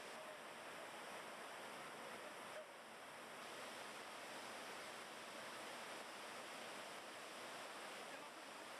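Steady rushing of a waterfall and fast-flowing river water, with a slight dip in level about two and a half seconds in.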